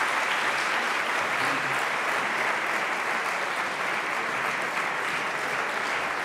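Audience applauding: a steady, dense clatter of many hands clapping.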